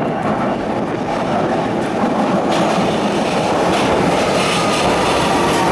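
Vienna U-Bahn U1 metro train pulling into an underground station: a steady rumble of wheels on rail that grows a little louder as it arrives, with a faint high whine coming in near the end.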